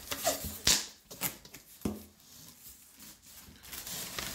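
Cardboard box being opened by hand: a few sharp cardboard knocks and scrapes in the first two seconds as the flaps are pulled back, then softer rustling of paper and packing near the end.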